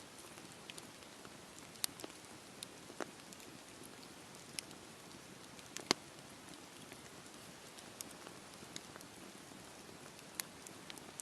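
Campfire burning: a soft, steady hiss of flames with irregular sharp crackles and pops from the burning wood, the loudest about six seconds in.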